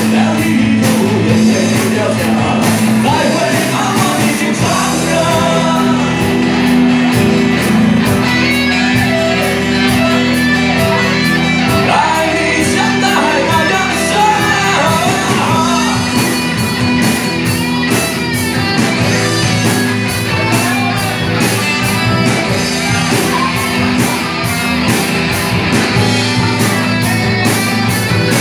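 Live rock music in a large hall: a male singer's voice wavering over a band of guitar and drums.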